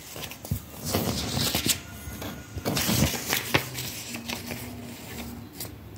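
Sheets of paper rustling and crinkling in a child's hands as she handles and folds them, in irregular bursts that are busiest in the first half and thin out later.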